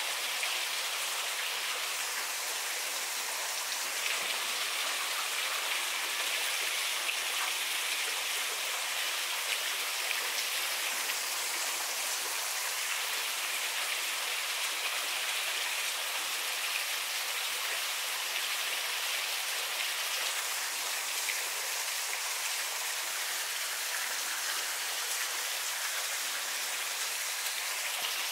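Steady hiss of running water.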